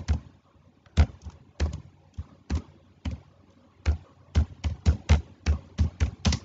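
Typing on a computer keyboard: separate keystroke clicks, a few spaced presses, a short pause, then quicker typing from about four seconds in.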